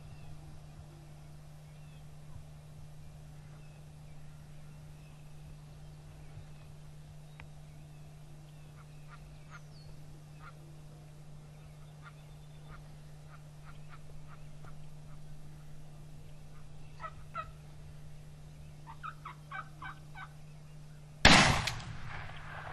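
Eastern wild turkeys calling in scattered short, sharp notes, with a quick rattling run of calls near the end, then one very loud shotgun blast about a second before the end, echoing afterwards.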